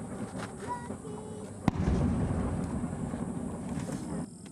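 An aerial firework shell bursts with a single sharp bang about a second and a half in. A low rumble follows and lasts for about two and a half seconds before dying away.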